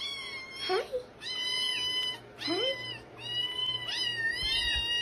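Several young kittens meowing again and again, high-pitched drawn-out calls that overlap one another.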